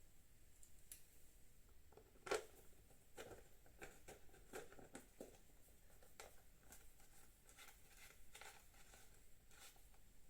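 Faint scattered clicks and taps of motorcycle fairing parts and bolts being handled during reassembly, with one louder knock about two seconds in.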